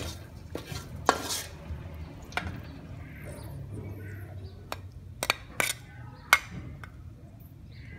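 A spoon moving through the stir-fry and clinking against a china plate: a scatter of sharp clinks, bunched in the second half, the loudest about six seconds in.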